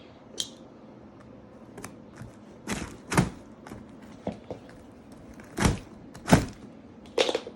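Knocks and thumps from handling and opening a cardboard shipping box: about six separate hits, the loudest about three and six seconds in.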